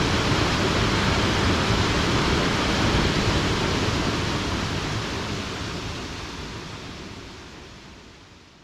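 Steady rushing noise of a tall waterfall's cascading water, fading out gradually over the second half.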